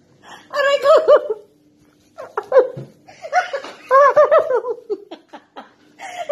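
Women laughing heartily in two bouts of rapid, high-pitched ha-ha-ha, the first about a second in and a longer one from about three seconds in.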